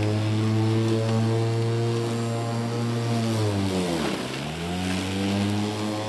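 Walk-behind petrol lawnmower engine running with a steady drone. A little past halfway its pitch drops sharply and climbs straight back up within about a second.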